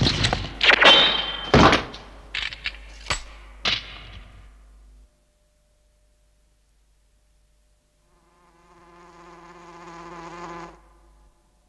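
Cartoon sword-slash effects: a quick run of sharp swishing strikes over the first four seconds. After a pause, a housefly buzzes with a steady hum that grows louder for about two seconds and stops abruptly near the end.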